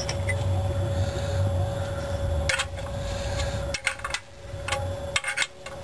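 A few light metal clinks and taps as the oil-pan drain plug and hand tools are handled, starting about halfway through, over a steady low hum with a faint steady tone.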